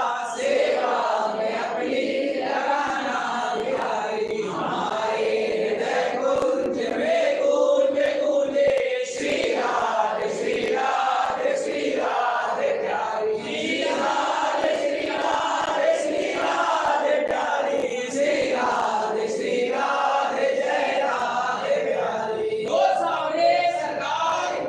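A crowd of devotees chanting a devotional song together, many voices in unison, in phrases that repeat with short breaks between them.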